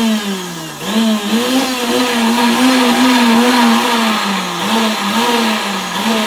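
High-speed countertop blender motor running loud, chopping cooked chickpeas into a thick mash. Its pitch drops sharply and recovers just before a second in, then dips briefly a few more times near the end.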